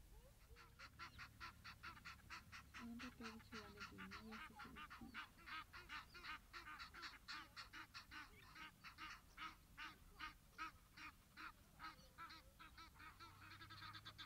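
A bird calling faintly in a long, even series of harsh, honking notes, about three or four a second, breaking off at the end.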